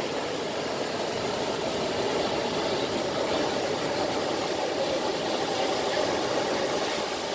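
Sea surf: small waves breaking and washing up over the sand as a steady rushing hiss, swelling slightly in the middle.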